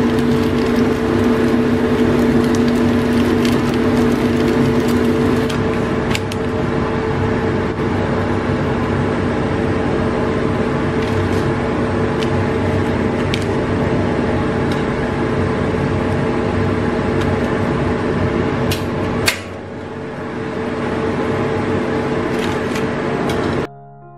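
Battered tempeh (mendoan) deep-frying in hot oil: a steady sizzle over a constant low hum, with a few light clicks. It cuts off suddenly near the end, giving way to soft piano music.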